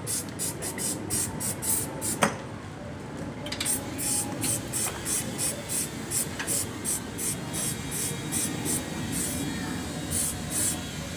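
Aerosol spray cleaner on a scooter CVT's drive-face pulley, sprayed in a rapid series of short hissing bursts, several a second, with a brief pause broken by a single sharp knock about two seconds in.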